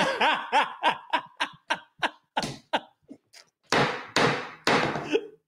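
A person laughing hard: a quick run of short 'ha' bursts that slows and fades, then a few loud breathy, cough-like gasps near the end.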